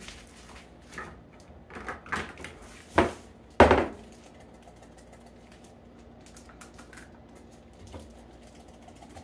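Several sharp knocks and clatters of a metal can against a small glass bowl and the counter while canned chicken is emptied out, the loudest a little past three seconds in. Quieter handling follows.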